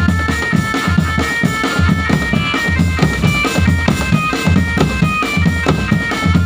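A marching drum band playing a tune, with a steady beat of bass drum and snare under a high, bright melody line.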